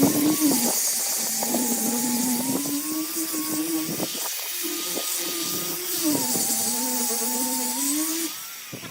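Wood lathe running with a tool cutting the spinning wood: a pitched motor-like hum that dips and rises in pitch under the cut, over a steady hiss of shaving. Both drop away near the end.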